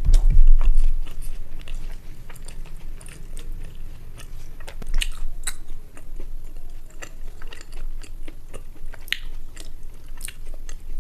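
Close-miked chewing and eating of rice and egg curry: soft, wet mouth clicks and smacks at irregular intervals. A loud low bump comes in the first second.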